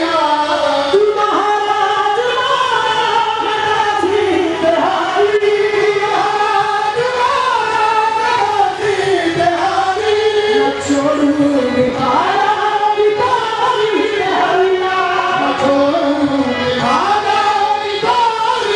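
Qawwali music with voices singing long, ornamented lines that glide up and down, a chorus joining the lead.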